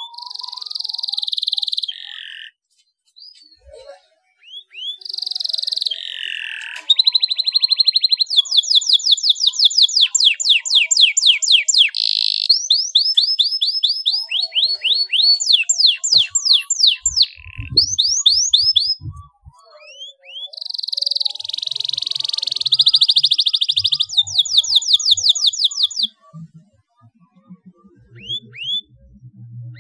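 Domestic canary singing a long, varied song: high whistled phrases and rapid trills of quick, repeated down-sweeping notes, with short pauses between phrases and a long unbroken run of trills in the middle.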